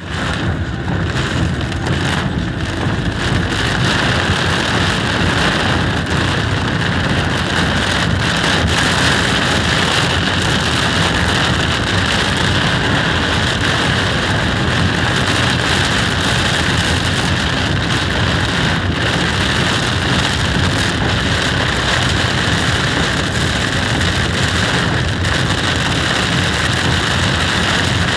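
Torrential rain beating on a car's roof and windscreen, a loud, steady, dense hiss heard from inside the cabin.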